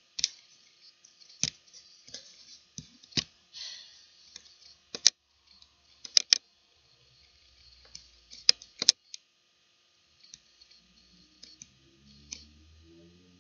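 Scattered, irregular clicks and taps of hands handling a device, the loudest clustered about five to nine seconds in; faint low notes start near the end.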